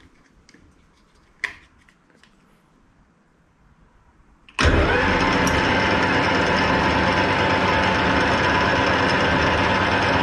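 Hafco AL-320G metal lathe being started: a sharp click about a second and a half in, then about three seconds later the motor and headstock start abruptly. They run steadily with a whine as the chuck spins.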